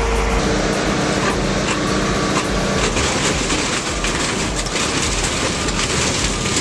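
A heavy truck's engine running under load, with a dense crackle of rapid snapping and knocking from breaking wood from about three seconds in.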